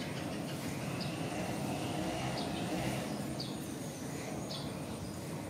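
Outdoor background: a steady low rumble, with a short high chirp about once a second.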